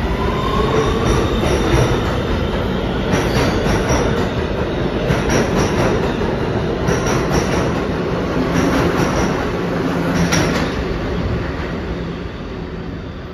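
An R211T New York subway train pulling out of an underground station: a rising whine from the motors as it gathers speed, then its wheels clicking over rail joints in quick groups, the sound fading as the train draws away near the end.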